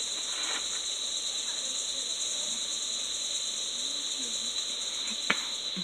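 Steady high-pitched chorus of insects chirring in the evening, with faint distant voices under it. A single sharp click about five seconds in.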